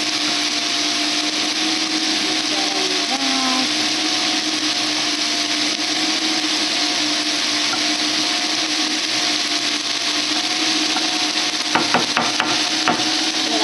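A wooden spoon stirs and scrapes steak and peppers around a cast-iron skillet, with a few quick knocks against the pan near the end, over a steady whirring hum and hiss.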